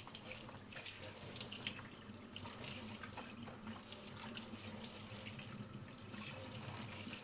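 Tap water running steadily into a sink as a washing machine's drain-pump filter is rinsed under it, with small irregular splashes.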